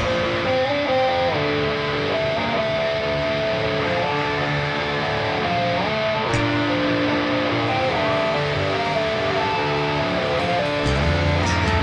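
Live rock band in a quiet break: electric guitar playing a melodic line of changing notes, with the heavy bass and drums dropped out. The full band crashes back in near the end.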